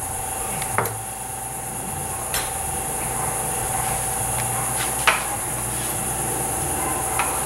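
A metal spoon clicking and scraping a few times against a small clay bowl while chopped peppers and onion are mixed, the sharpest click about five seconds in. Under it runs a steady background hum and hiss.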